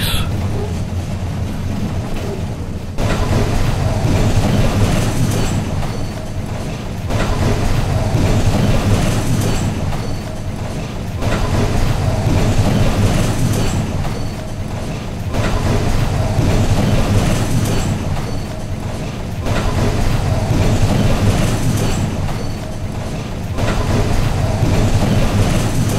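Melbourne E-class tram running along its track, heard inside the passenger cabin: a steady low rumble of wheels on rail with a hiss above it. It steps up in loudness about three seconds in, then swells and eases about every four seconds.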